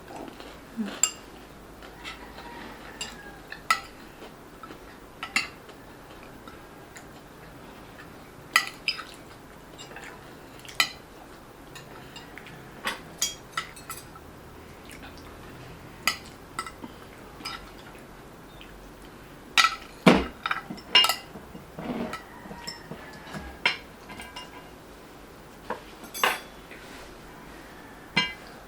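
Cutlery clinking against plates and bowls during a meal: scattered sharp clinks every second or two, with a quick run of them about twenty seconds in.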